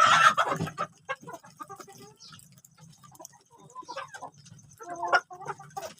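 Desi chickens clucking and calling, loudest in the first half second, then short scattered clucks with a couple of longer calls near the end.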